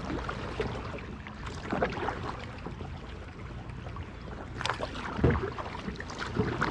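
Kayak paddled slowly through shallow water: irregular small paddle splashes and drips, with scattered knocks against the hull, the loudest a little under five seconds in.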